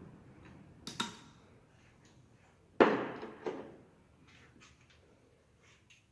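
Metal tools and gearbox parts being handled during the rebuild of a Ford Fiesta manual gearbox. A ringing metallic clink comes about a second in. A louder knock follows near the three-second mark, with a softer second hit just after, then a few light clicks.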